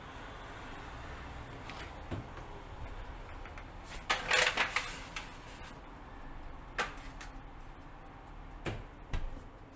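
Disposable aluminium foil tray pushed onto a metal oven rack, a crinkling, rattling clatter about four seconds in, followed by a few separate sharp knocks.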